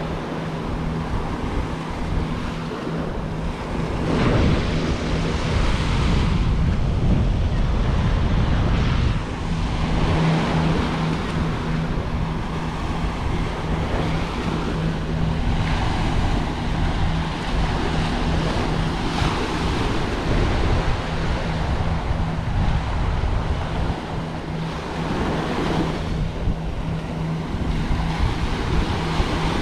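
Small ocean waves breaking and washing up the sand at the water's edge, swelling and ebbing every few seconds, with wind on the microphone. A steady low hum runs underneath.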